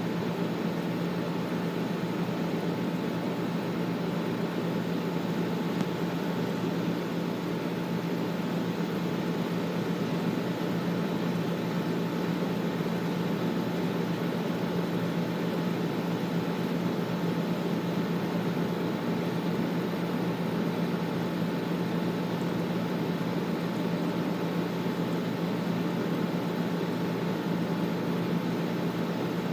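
Air conditioner running steadily: an even whooshing noise with a constant low hum underneath.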